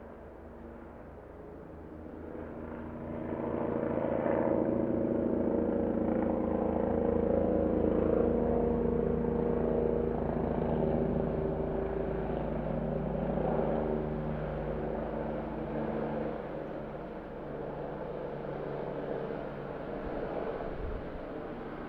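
Helicopter passing overhead, its rotor blades making a rapid steady chop under an engine hum. The sound swells about three seconds in, stays loud for several seconds, then slowly fades.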